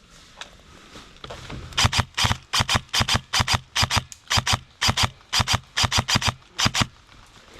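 Brisk footsteps crunching on dry ground, about four steps a second, starting a couple of seconds in and stopping near the end.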